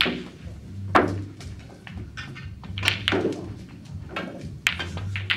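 Snooker balls knocking: a sharp click of the cue ball striking a red, then a louder knock about a second in, with further clicks later as balls collide and a red is potted. Low rolling rumble between the knocks.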